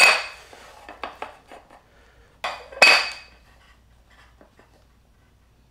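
Metal flat-pack table parts being handled: sharp clanks with a brief ringing tone at the start and twice about two and a half to three seconds in, with lighter clinks and rattles between.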